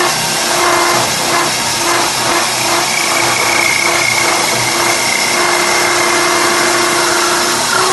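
Wood lathe running and cutting a spinning wooden blank: a steady hiss of wood chips over the motor's hum. A faint pulsing about twice a second comes through in the first half, and a high steady whine joins in the middle.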